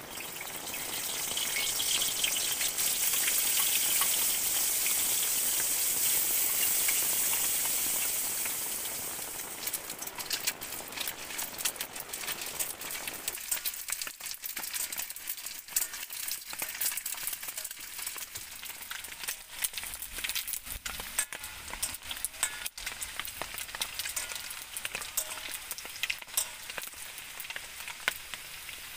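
Eggplant frying in hot oil in a pan. A loud sizzle swells within the first second or two and holds, then dies down about ten seconds in to a quieter crackle of scattered pops.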